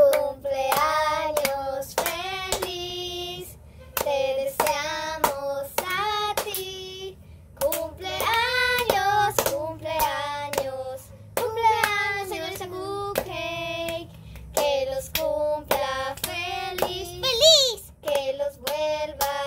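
A high voice singing a lively tune in short notes, with sharp hand claps in between.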